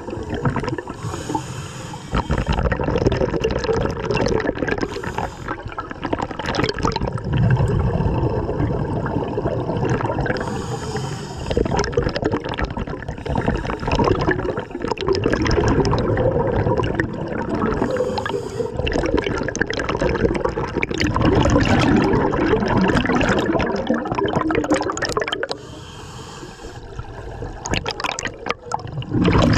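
Scuba diver breathing through a regulator underwater: the rushing, gurgling bubbles of exhaled breath, broken by short hissing inhalations every several seconds.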